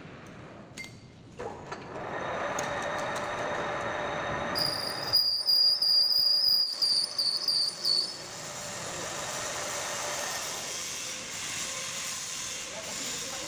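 Manual metal lathe running, its cutting tool working a steel workpiece. About four seconds in, a loud, high-pitched squeal of the tool on the metal sets in for a few seconds, then the machine runs on without it.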